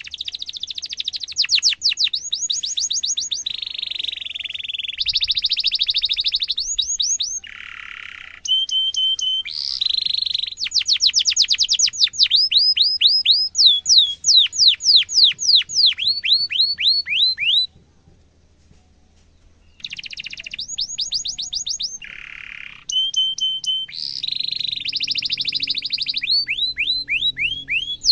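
Domestic canary singing a long rolling song of rapid repeated trills, each note a quick falling sweep. It breaks off for about two seconds partway through.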